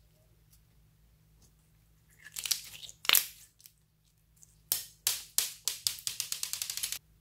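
Clear slime being stretched and squeezed by hand, crackling and popping as trapped air bubbles burst: a short burst of crackles about two seconds in, then a run of sharp pops that come faster and faster and stop abruptly near the end.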